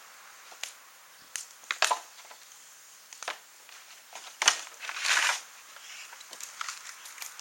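Wood fire of burning scrap lumber crackling, with sharp pops at irregular intervals and a louder noisy burst of about half a second around five seconds in.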